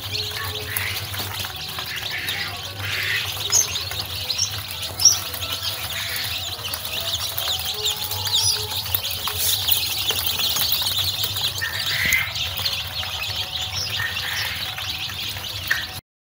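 A crate of dozens of Sonali chicks peeping all together: a dense stream of overlapping high-pitched cheeps, with a low steady hum underneath. It cuts off suddenly just before the end.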